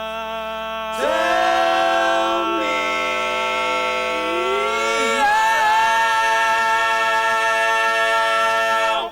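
An a cappella barbershop quartet sings the final held chord of a song's ending tag. About a second in the chord shifts and gets louder, and around the middle one voice slides up to a new note. The group then holds the chord until it cuts off together near the end.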